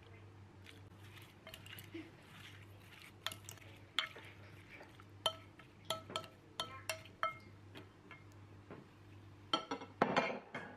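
Wooden spoon stirring and tossing sliced vegetables in a glass mixing bowl, with irregular clinks of the spoon against the glass that ring briefly, over a low steady hum. Near the end a short cluster of louder knocks and rustling.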